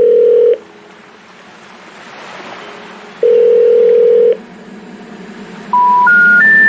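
Telephone line tones: two long, steady, low beeps about three seconds apart over a faint hiss. Near the end come three short rising notes, the special information tone that a phone network plays before a 'number not in service' message.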